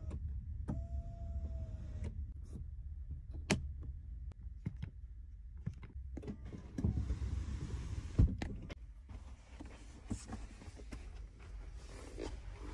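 Power seat motor in a 2023 Buick GL8 Avenir minivan whirring as the seat adjusts, a steady whine about a second long near the start. It is followed by a series of sharp clicks and knocks from the seat controls and trim, the loudest about eight seconds in.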